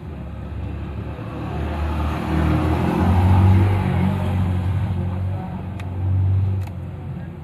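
A motor vehicle's engine running nearby, its rumble swelling and fading twice as it passes, with a couple of faint clicks near the end.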